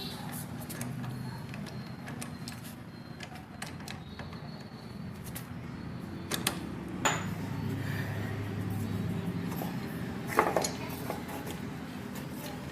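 Metal tools and parts clinking and knocking as a motorcycle clutch is worked on, irregular light clicks with a few sharper clanks about halfway through and again near the end, over a steady low hum.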